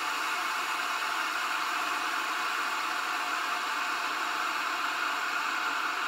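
Princess House glass electric kettle with a 1500-watt heating element heating water: a steady rushing hiss with no change in pitch.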